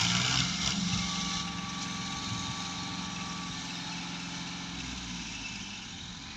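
Diesel tractor engines running steadily as two tractors in tandem pull a trolley loaded with sugarcane, at a distance. A loud hiss at the start dies away over the first second and a half.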